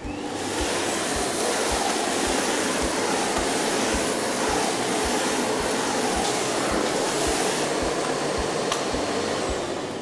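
Miele Blizzard CX1 bagless cylinder vacuum cleaner switched on, its motor coming up to speed over about the first second and then running with a steady rushing suction noise while the universal floor head is pushed over a hard tile floor. The noise dies away near the end.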